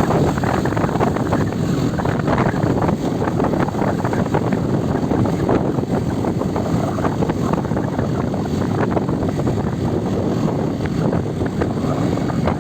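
Wind buffeting the microphone of a camera carried on a moving motorcycle, with the motorcycle's engine and road noise beneath it.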